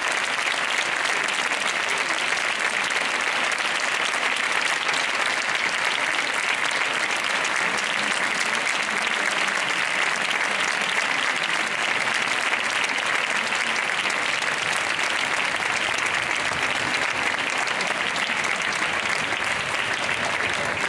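Audience applauding: steady, dense clapping that goes on without a break.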